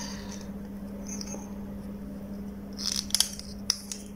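Soldering iron unsoldering wire joints on a small circuit board: a few small sharp clicks and scrapes about three seconds in, over a steady low hum.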